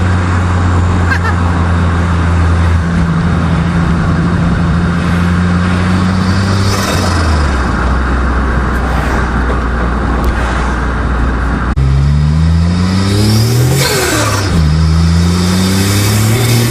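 Car engine under way: it holds a steady pitch, the pitch drops about seven seconds in, then climbs as the car accelerates, falls sharply at a gear change near the end and climbs again.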